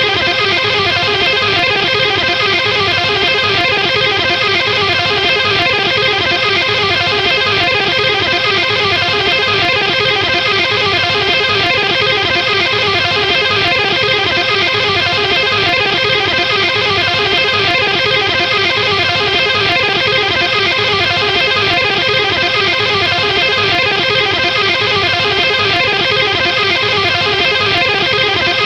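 A rock chord strummed fast and repeatedly on guitar, going on at a steady, even level.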